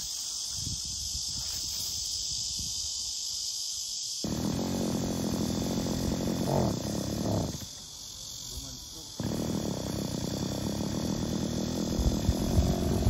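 Steady, high-pitched chirring of insects in summer grass. About four seconds in, a lower background noise comes in under the chirring and stays.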